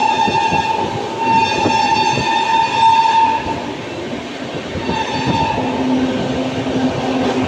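Passenger express coach wheels squealing on the rails: a steady high screech that breaks off briefly about a second in and dies away around halfway. A lower squeal follows for a second or two near the end. Underneath runs the clatter and knocking of the coach over rail joints and points.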